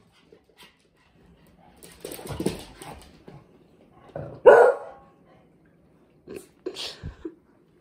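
Dogs barking during play: one loud bark about halfway through, then a few shorter barks near the end, with some rustling of movement before.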